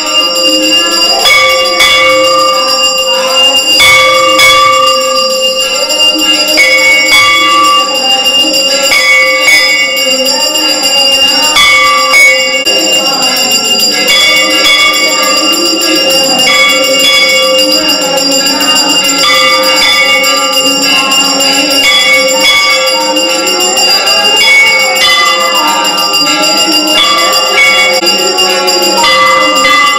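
Temple bells rung continuously for aarti, struck again and again so that their ringing tones overlap into a steady clangour.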